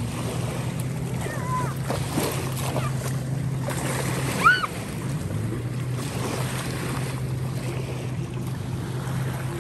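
A motor hums steadily at a low pitch, dropping slightly in pitch about five seconds in. A short, high, rising-then-falling call cuts in about four and a half seconds in.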